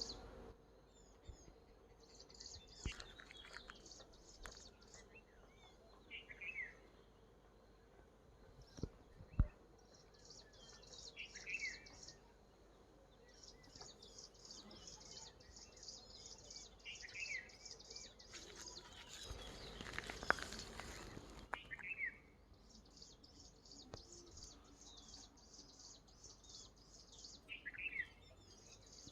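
Faint outdoor ambience: a high, pulsing chorus of insects, with a short bird chirp repeated about every five seconds and a few scattered clicks.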